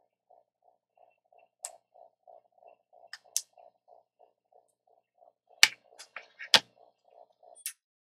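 Sharp clicks and taps from handling small phone parts on a repair bench, the loudest two a little after halfway. Under them a faint, soft pulse repeats about three times a second and stops near the end.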